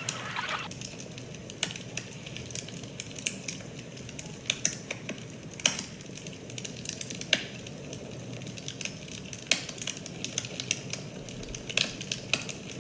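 Wood fire crackling: irregular sharp pops and snaps, a few a second, over a low steady rush.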